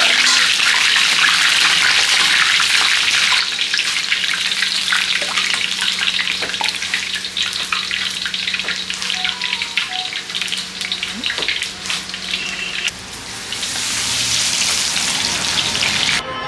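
Flour-and-spice-coated seafood frying in hot oil. An even, loud sizzle gives way after a few seconds to a busier crackle and spatter.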